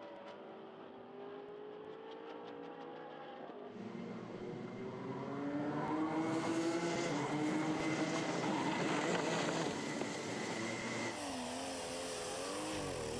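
Race engines heard in three short clips one after another. First a GT race car's engine runs fairly steadily. Then, about four seconds in, a pack of racing karts' engines comes in louder, several of them together. Near the end a pulling tractor's engine revs up and down over and over.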